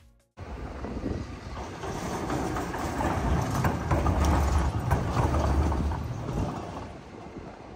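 Moving train: a steady low rumble with rattling and clatter, growing louder through the middle and easing toward the end.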